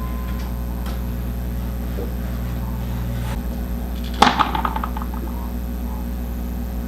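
A steady low hum, part of which cuts off a little over three seconds in, then a single sharp clack followed by a short rattle about four seconds in.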